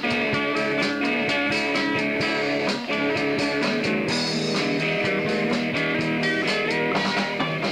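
Live rock band playing: two electric guitars over a drum kit.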